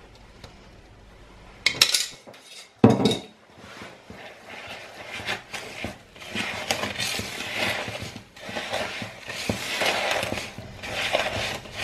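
Two sharp knocks, then a wooden spoon stirring and scraping thick oat cookie dough in a mixing bowl: a continuous rough scraping with irregular strokes.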